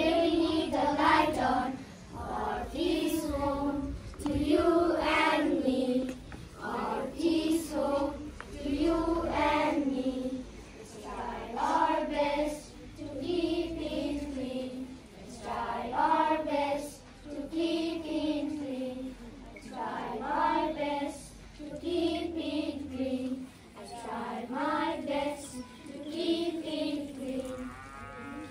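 A group of schoolchildren singing together in unison, in short phrases that come about every two seconds.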